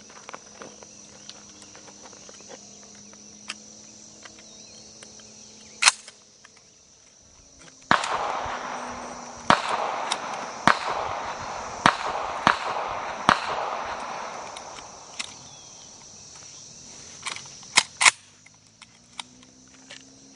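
Shotgun shots at a clay-pigeon range: a single sharp report, then a run of several shots in quick succession over loud rolling echo, then two more shots close together.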